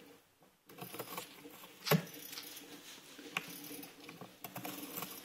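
Cat tearing at the rim of a cardboard box: irregular crackling and scratching of cardboard, with a few sharp snaps, the loudest about two seconds in.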